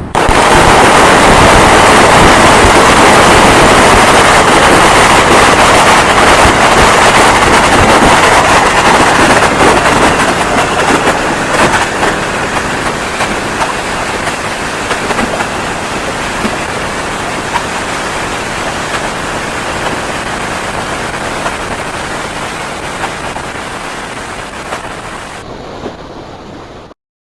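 A long string of firecrackers going off in a rapid, continuous crackling barrage. It is loudest over the first ten seconds or so, slowly thins and fades, then cuts off suddenly near the end.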